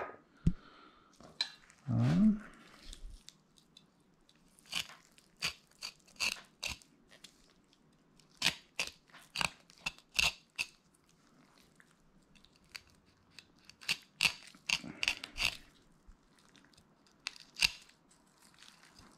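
Fillet knife crunching through a walleye's rib cage as the fillet is peeled off the bones, in a series of short, crisp crackles at irregular intervals. A brief low sound about two seconds in.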